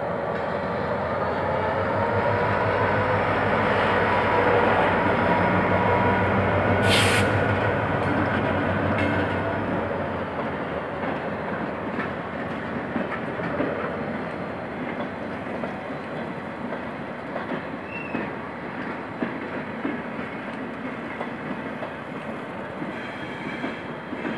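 GM GT22CW-2 diesel locomotive's 12-cylinder two-stroke EMD engine working as it pulls a passenger train past, its deep engine note growing louder and then fading out about ten seconds in; a short hiss comes near the loudest point. The coaches follow, their wheels rolling and clicking over the rail joints and the crossing.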